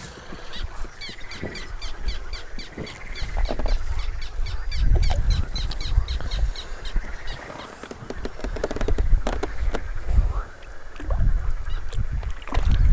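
Wild birds calling, with a quick run of short, high notes at about four a second through the first few seconds. Low rumbles and a few sharp knocks come in between.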